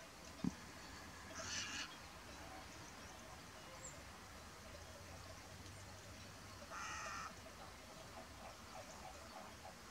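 Faint outdoor background with two short, harsh bird calls about five seconds apart, and a single dull low thump near the start.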